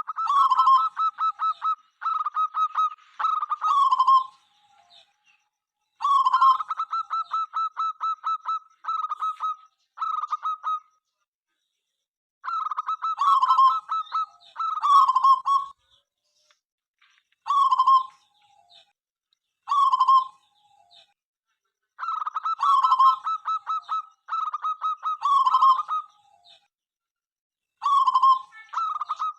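Zebra dove (perkutut) cooing: phrase after phrase of quick clipped notes rolling into a lower slurred coo, repeated in bouts of a few seconds with short pauses between them.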